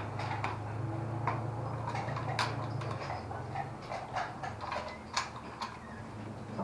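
Irregular light metallic clicks and clacks of .303 cartridges and rifle magazines being handled and loaded, over a steady low hum that is stronger for the first three seconds.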